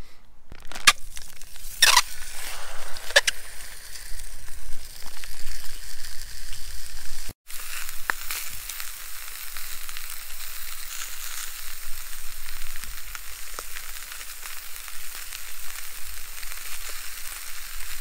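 Coiled game bratwurst frying in oil in an aluminium camp-stove pan: a steady sizzle, with a few sharper spits in the first three seconds. The sound drops out for an instant a little past seven seconds in.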